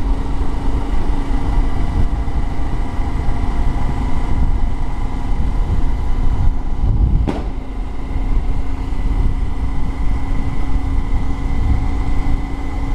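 Bajaj Pulsar 125 BS6 single-cylinder engine and exhaust running steadily while ridden slowly, heard from the moving bike with wind rumbling on the microphone. One sharp knock cuts through about seven seconds in.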